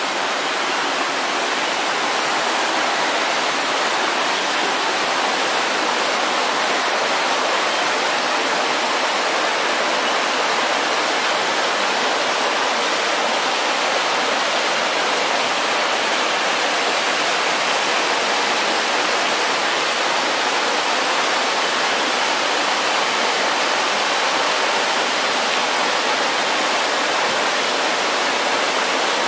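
A small waterfall and rocky stream: water rushing and splashing over boulders in a steady, unbroken wash.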